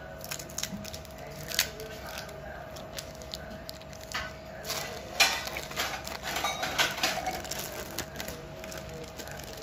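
Plastic wrapping of a packet of cheese slices crinkling as it is handled and peeled open, in scattered crackles that are busiest about halfway through. A steady faint hum runs underneath.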